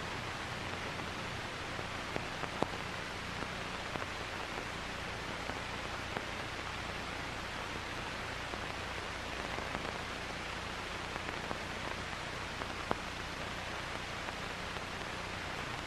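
Steady hiss of the soundtrack's background noise, with a faint low hum and a couple of faint clicks, the clearest about two and a half seconds in and about thirteen seconds in.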